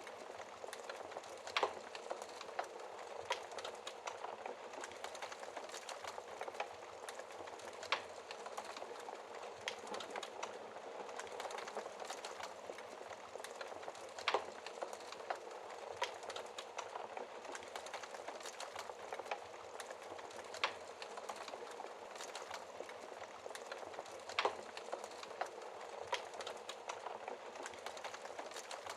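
Wood fire burning in a fireplace behind a glass screen: a steady hiss with frequent small crackles and an occasional louder pop, about every few seconds.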